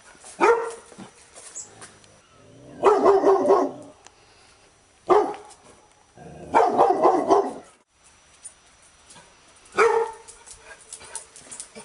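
Labrador retriever barking: short single barks about every five seconds, each followed a couple of seconds later by a second-long run of quick barks.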